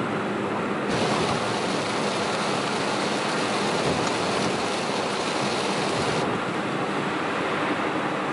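Steady road and tyre noise heard from inside a car at expressway speed on a soaked road. About a second in, as the car leaves a tunnel, a loud hiss of heavy rain and tyre spray comes in. It cuts off about six seconds in as the car enters the next tunnel.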